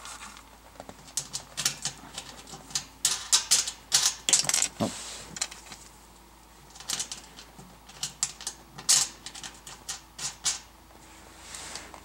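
Irregular sharp metal clicks and taps, in short clusters, as nuts are tightened by hand tool onto the terminal block studs of an electric range, fastening the ring terminals of a three-wire power cord.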